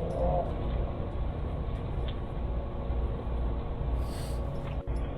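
Steady low rumble with hiss from a doorbell camera's microphone, thin-sounding because the audio is cut off in the upper range, with a faint hum underneath.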